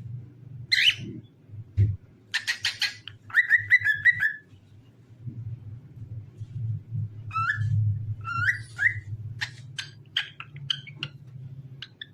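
Cockatiel singing: a run of chirps and whistled notes, some with sweeping inflections, broken by quick clicky notes, over a steady low hum.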